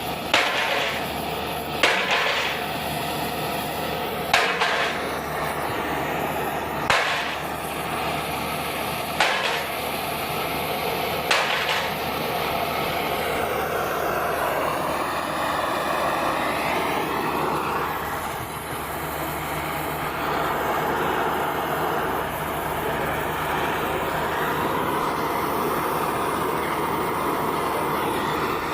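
A machine running steadily with a humming, multi-toned drone, with a sharp metallic knock about every two seconds through the first half; after that the knocks stop and the machine's pitch wavers up and down.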